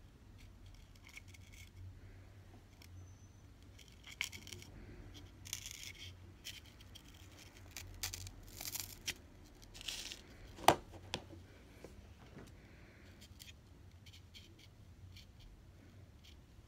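Tiny metal rose-headed pins being pushed into a block of dry green floral foam: scattered soft crunches, scratches and small clicks, with one sharp click about ten and a half seconds in.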